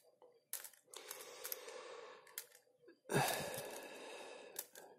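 Plastic Rubik's cube turned by hand: several sharp clicks of the layers snapping round. Two longer hissing sounds, each about a second and a half; the louder starts about three seconds in.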